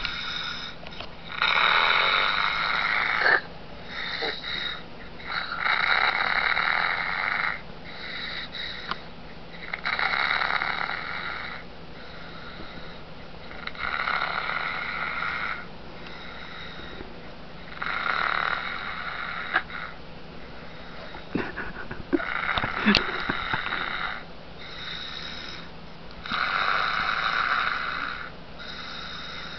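A man snoring over a Skype call, heard through the computer's speaker: a snore about every four seconds, with quieter breaths between. A few faint clicks come partway through.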